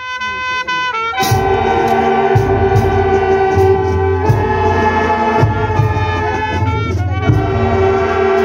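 Marching band of saxophones, trumpets, sousaphone and drums playing. A few horns hold a note for about a second, then the full band comes in with the drums beating.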